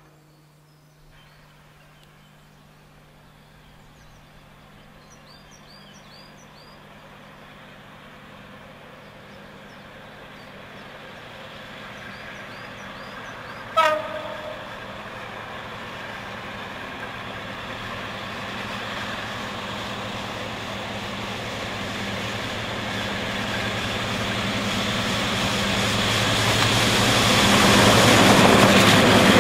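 Warship class diesel-hydraulic locomotive D832 'Onslaught' approaching with a rake of coaches, its engine and wheels growing steadily louder until it passes close by near the end. About halfway through it sounds one short blast on its horn.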